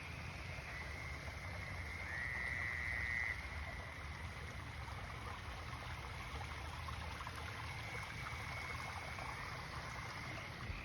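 Night chorus of frogs, gray tree frogs giving trilled calls over a steady background chorus. One louder trill about two seconds in lasts just over a second. A steady low rumble sits underneath.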